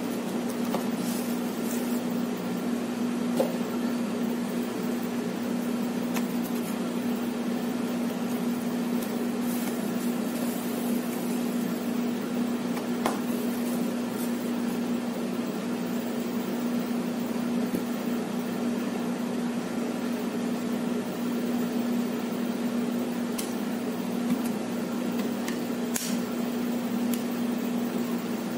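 A steady machine hum, like an appliance or fan running, holds one even droning tone throughout. A few faint clicks of handling sound over it as the cardboard box is unpacked and the bottle is turned in the hands.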